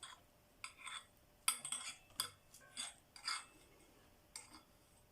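A string of short metallic clinks and rattles, about six or seven of them spread over a few seconds, from parts of a BMX bike being handled.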